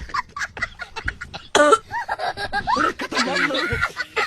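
A person coughing in a rapid string of short, sharp coughs, with one louder, voiced cough about one and a half seconds in.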